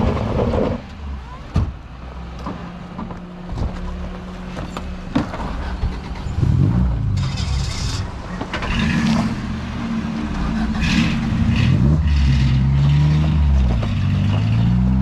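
Ford Crown Victoria's V8 engine revving up and down under load as the car climbs a steep, loose dirt and rock slope. Scattered knocks and crunches of rock and gravel come from under the tyres.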